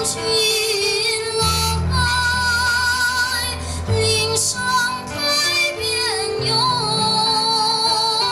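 Music with a woman singing long, held notes over a soft instrumental accompaniment.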